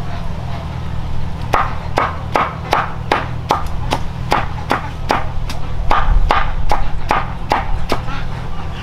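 A knife chopping leafy green stalks, each cut knocking on the surface beneath, in an even run of about sixteen strokes, roughly two and a half a second, that starts about a second and a half in and stops near the end. A steady low hum runs underneath.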